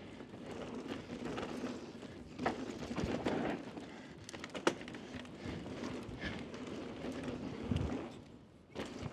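Mountain bike riding fast down a dusty dirt trail: tyres rolling and scrubbing over loose dirt, with irregular rattles and knocks from the bike. There is a sharp click about four and a half seconds in and a low thump near the end.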